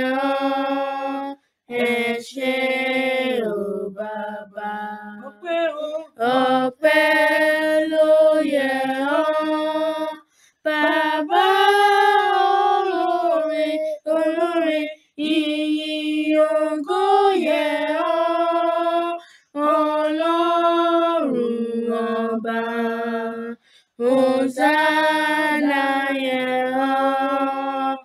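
Two children, a boy and a girl, singing a worship song together unaccompanied, in long held notes with brief pauses between phrases. The words include 'Hosanna' and 'Oṣè'.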